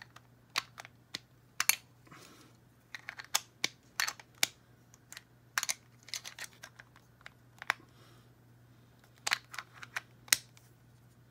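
Small plastic parts of a MiniVerse miniature toy appliance clicking and tapping together as they are handled and pushed to snap on. The clicks are sharp and irregular, with a few louder ones.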